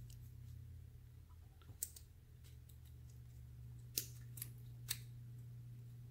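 A few faint metallic clicks and taps as a brass Euro-profile lock cylinder and a pinning shoe are handled during reassembly, over a steady low hum.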